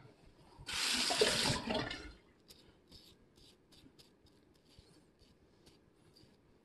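A loud hiss lasting about a second, starting just under a second in. After it comes a run of short scrapes: a safety razor drawn over butter-coated stubble, a few strokes a second.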